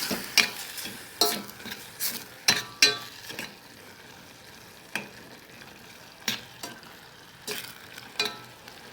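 Mussels being tipped into a saucepan of frying tomato-harissa sauce and stirred, with sharp clicks and clatters of shells and utensil against the pan over a faint sizzle. The clatters come thickly over the first three seconds, then only now and then.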